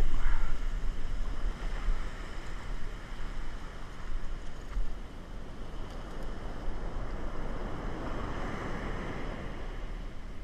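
Surf washing up the beach, with wind buffeting the microphone in a steady low rumble. It is loudest in the first second, and a wave surges up again near the end.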